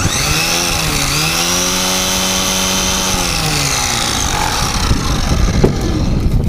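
Battery-powered grinder motor spinning the Cobra rock crusher: it spins up, its pitch sags briefly about a second in, runs steady, then winds down after about four seconds.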